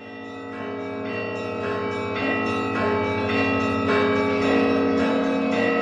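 Church bells ringing in a peal, a new strike about every half second with each bell left ringing, fading in over the first two seconds.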